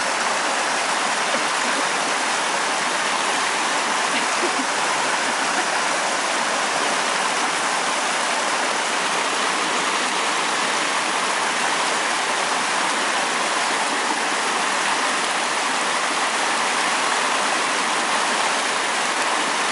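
Steady rush of waves and foaming water washing in, a constant hiss-like roar with no breaks.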